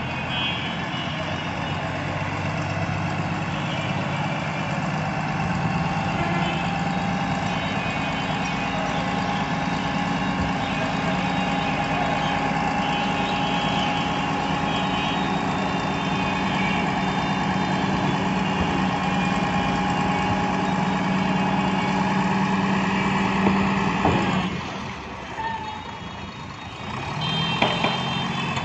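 A heavy dump truck's diesel engine runs steadily at raised revs to drive the hydraulic hoist, tipping the loaded bed. About 24 seconds in the engine note drops away, and near the end there are a few knocks as the load of soil starts to slide out.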